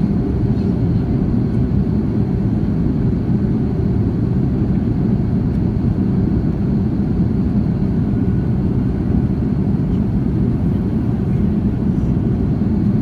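Steady cabin noise of an Airbus A330-300 airliner in flight: an even low rumble of engines and airflow, unchanging throughout.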